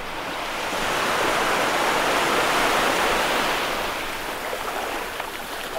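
Ocean surf: a wave breaking and washing up the beach, its hiss swelling over about two seconds and then fading away.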